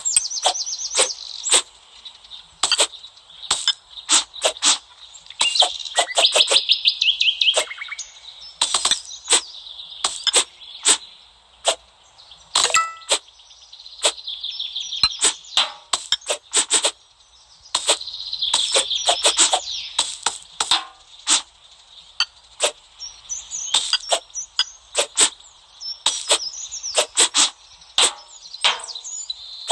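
Repeated sharp, crisp cuts from slicing, coming irregularly every half second or so, over birds chirping and trilling.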